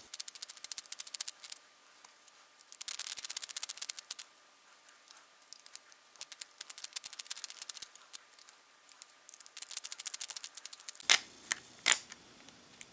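A small T8 Torx screwdriver backing screws out of a laptop hard drive's aluminium sled: several runs of fast, fine metallic clicking, each about a second long, with a few sharper clicks near the end.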